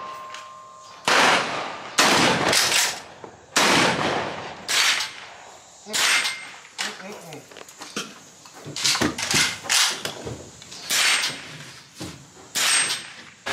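Gunshots from several guns on an outdoor shooting range: about a dozen sharp shots at uneven intervals, each with a short echoing tail.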